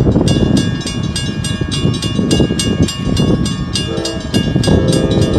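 WRRS mechanical crossing bell starting to ring just after the start, striking about five times a second as the crossing signals activate for an approaching train. Under it is a steady low rumble, and a locomotive horn sounds briefly about four seconds in and again near the end.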